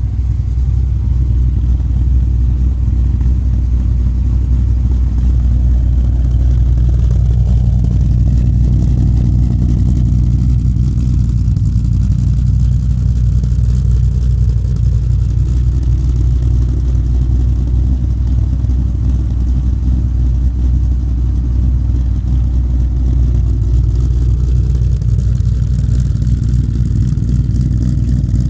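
Shelby GT500's supercharged V8, fitted with aftermarket 'Super Stock' camshafts, running steadily at idle through its exhaust, with a loud, deep, even note and only slight swells.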